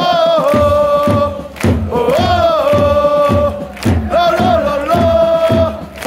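A stadium crowd of football supporters singing a chant in unison, with long held notes in a slow melody and a steady low beat underneath.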